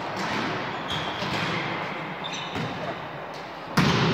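A volleyball struck hard once near the end, a sharp smack that rings on in the hall, most likely the serve opening the rally, over a steady background of voices and gym noise.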